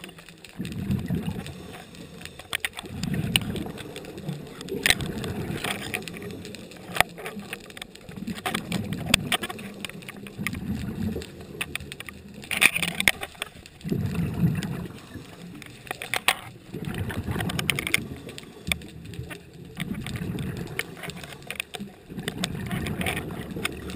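Scuba diver's exhaled breath bubbling out of the regulator, heard underwater through the camera housing: a low, muffled bubbling rush that comes in surges every two to three seconds, with scattered clicks between.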